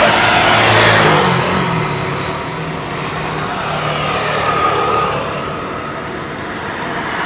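A vehicle's engine passing close by: a rushing noise, loudest about a second in, with its low hum dropping in pitch as it passes, then settling into a steadier drone that fades slowly.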